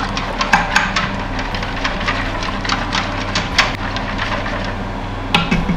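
A whisk stirring milk in a stainless steel Instant Pot insert: irregular clicking and scraping of the whisk against the pot.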